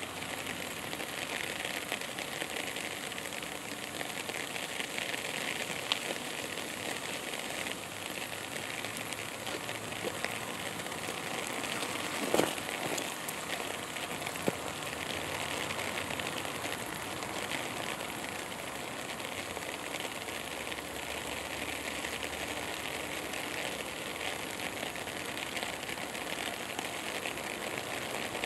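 Steady outdoor background hiss with a few faint clicks, and one louder knock about twelve seconds in.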